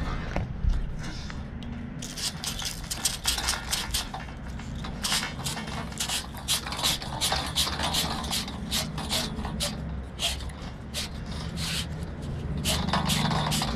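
3/4-inch copper pipe being worked with a hand tubing cutter: a dense run of short metallic scrapes and clicks as the cutter is turned around the pipe, starting about two seconds in.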